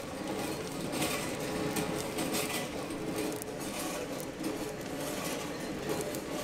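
Steady running noise of a street chestnut-roasting stall, with light scattered clinks of metal and chestnuts.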